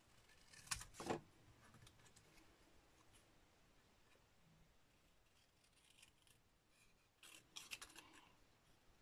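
Small paper snips cutting a thin strip of card stock: two short snips about a second in, then a quick run of several snips near the end, with near quiet in between.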